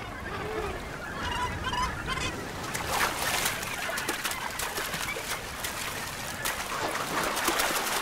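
A flock of Cape gannets calling with harsh, honking cries. From about three seconds in, many rapid splashes join the calls as the birds plunge-dive into the sea.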